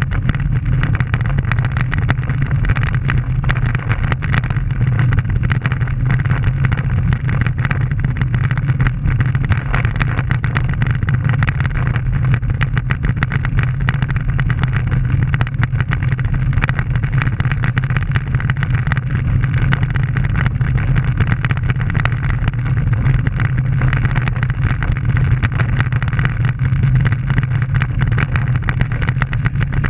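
Steady wind rush on a bike-mounted camera's microphone, mixed with the rumble of road-bike tyres on rough, gravelly asphalt while riding.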